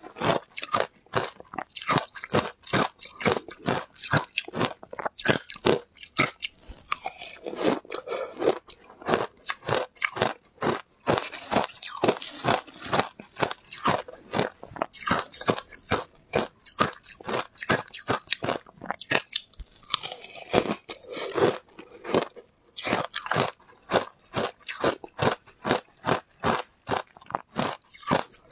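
Shaved ice dusted with matcha and milk powder being crunched and chewed in the mouth, close to a clip-on microphone: many sharp crackling crunches, several a second, with no let-up.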